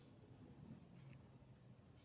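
Faint snoring of a sleeping domestic cat: a soft, low rasp that swells briefly about half a second in.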